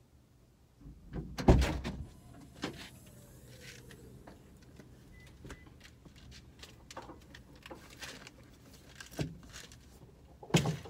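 A van's rear hatch unlatching and opening with a loud knock and clatter about a second and a half in, followed by faint clicks and rustles as a canvas tote bag is handled at the open back, and another sharp knock near the end.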